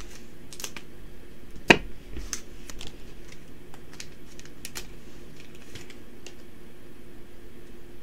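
Scissors snipping open a foil trading-card booster pack, with one loud sharp snip just under two seconds in. Lighter clicks and rustles follow as the pack and cards are handled.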